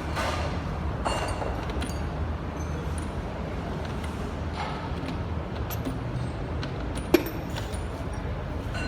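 A steady low machine rumble with scattered light metallic clinks and ticks, and one sharp metal knock about seven seconds in.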